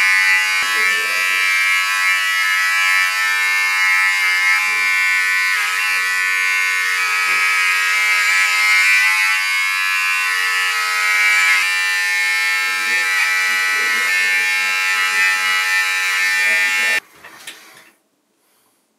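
Electric hair trimmer buzzing steadily as it is run over the scalp, shaving the head down to the skin. It stops abruptly near the end, followed by a brief faint clatter.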